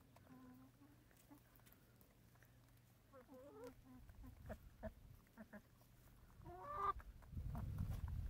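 Hens clucking softly in short, wavering calls while they peck at a bowl of frozen vegetables and water, with a few sharp taps of beaks on the bowl in the middle. A low rumble near the end is the loudest sound.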